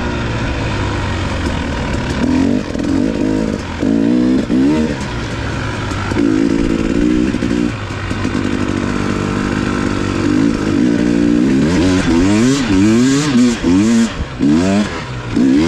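Dirt bike engine revving up and down as the rider works the throttle and gears on a trail. Near the end it gives a run of quick, sharp revs.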